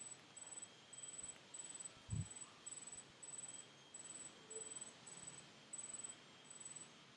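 Faint, steady chirping from a cricket-like insect, about two short high-pitched chirps a second, with one soft low thump about two seconds in.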